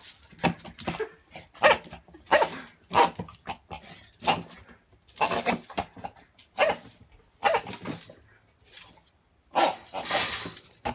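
A dog playing with a rubber pig toy: a string of short, sharp bark-like sounds, roughly one a second.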